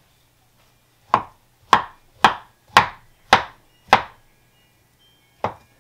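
Broad-bladed knife chopping avocado on a wooden cutting board: six evenly paced chops a little over half a second apart, starting about a second in, then one more chop near the end.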